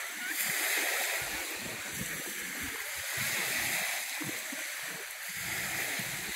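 Small lake waves lapping and splashing on a sand beach, the wash swelling and fading twice.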